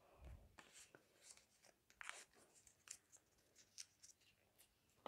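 Faint crinkling and rustling of a small paper slip being folded by hand: a run of short, crisp crackles, with a soft low bump right at the start.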